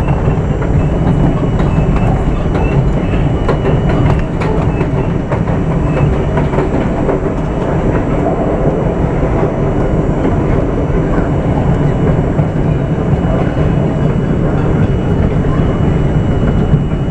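An R42 New York City subway car running on elevated track, heard from inside at the front window: a steady rumble with wheels clattering over the rail joints, and a thin steady high whine above it.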